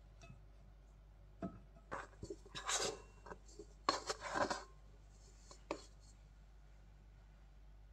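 Mixing bowl and glass baking dish clinking and scraping as soft, sticky bread dough is tipped out of the bowl into the oiled dish: a few light knocks, and two longer scraping rustles in the middle.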